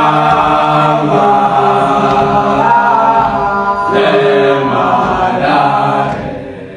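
A group of young male voices singing a gwijo chant a cappella in harmony, with no instruments, fading out near the end.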